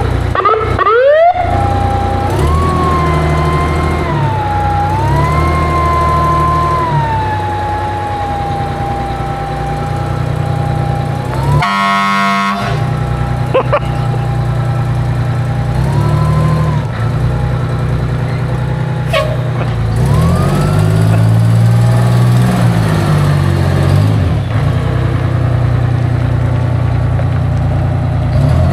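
Pierce ladder fire truck's siren wailing, its pitch rising quickly at first and then sliding slowly up and down, with a short horn blast about twelve seconds in, over the truck's engine running.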